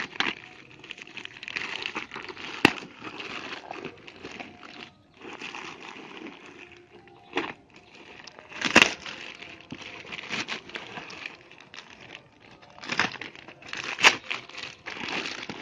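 Plastic courier mailer bag crinkling and rustling as it is slit open with a knife and pulled apart, with three sharp clicks standing out above the rustle.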